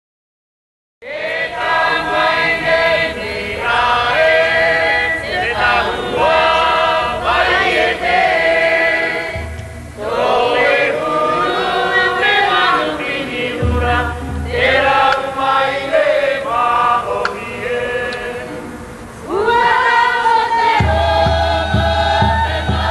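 A choir singing a Polynesian song in several voices, starting about a second in. A low, regular drumbeat joins under the voices about ten seconds in, drops out and returns, and runs steadily near the end.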